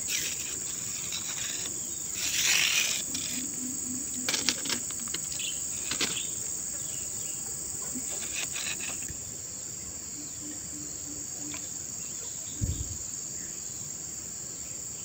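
Steady high-pitched chirring of insects, with a few brief rustles and clicks and a single low thump near the end.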